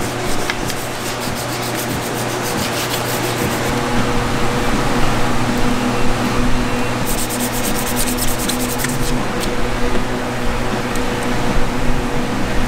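Hand rubbing, in quick repeated strokes, pressing a vinyl sticker down onto the pit bike's plastic. A steady low hum runs underneath.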